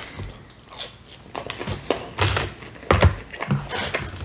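Close-miked eating sounds of pepperoni pizza: wet chewing and mouth clicks with irregular crisp crackles, the strongest about three seconds in.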